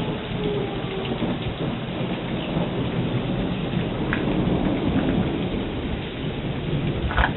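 Steady rain falling on a wet road and roadside grass in a thunderstorm, with thunder rumbling low underneath.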